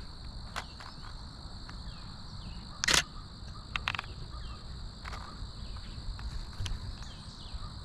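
Steady high-pitched chorus of trilling insects in marsh grass, with a few sharp clicks, the loudest about three seconds in.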